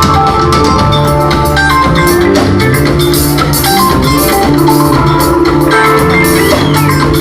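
Instrumental break of a rock song: drum kit with a steady beat, bass and electric guitar playing, no singing.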